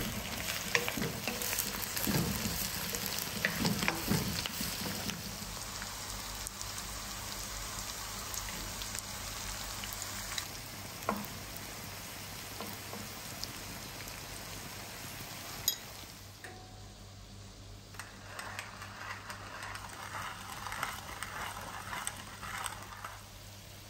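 Sliced vegetables sizzling in a hot oiled wok, stirred and scraped with a wooden spatula in the first few seconds, the sizzle slowly dying down. After about 16 s, a hand-cranked brass pepper mill grinding in short scratchy bursts.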